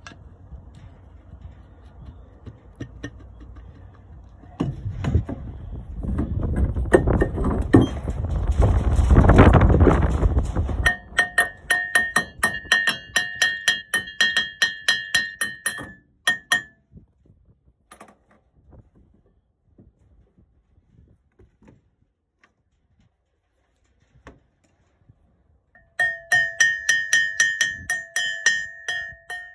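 Ball-peen hammer tapping the end of a mower blade spindle shaft, driving it home through the new bearings in the spindle housing: quick ringing steel-on-steel taps, about four a second, in two runs, the first starting about eleven seconds in and the second near the end. Before the taps, wind rumbles on the microphone.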